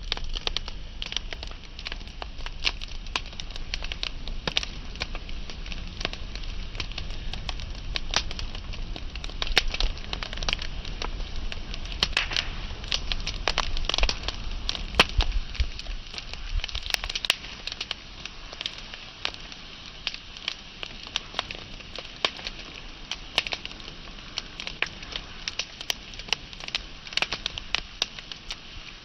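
Wood fire crackling, with frequent irregular sharp pops over a soft hiss. The crackling is busier and louder for the first half, then eases off a little for the rest.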